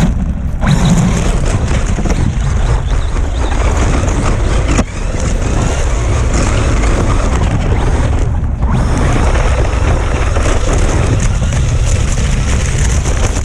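Electric RC truck driving through snow: a loud, steady rumble and hiss of motor, tyres churning snow and wind buffeting the microphone, easing briefly about five seconds in and again around eight and a half seconds.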